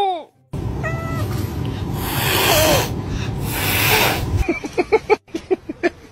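An angry cat hissing, with two long loud hisses about a second apart, then a quick run of short sharp calls near the end.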